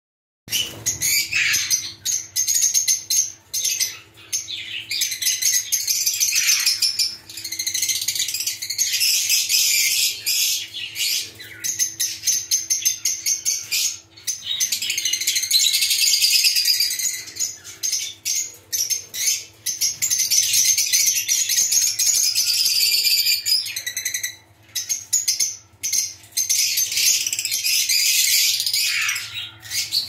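A flock of lovebirds (masked and Fischer's lovebirds, with ino and blue birds among them) chattering and chirping together in busy, overlapping high-pitched calls, with a few short lulls. A faint steady hum sits underneath.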